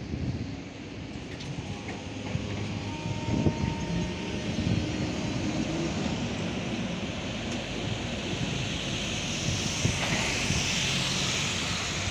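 A Tatra T6A5 tram pulling away, its wheels running on the rails with faint steady tones underneath. About ten seconds in, a steady hiss grows as a motor vehicle passes close by on the wet road.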